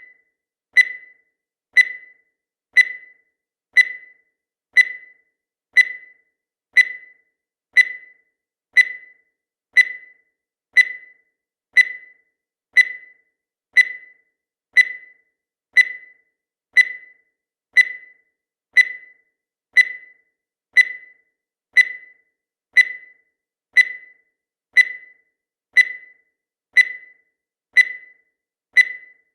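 Countdown timer sound effect: a short, sharp, high tick once every second, evenly spaced and steady throughout.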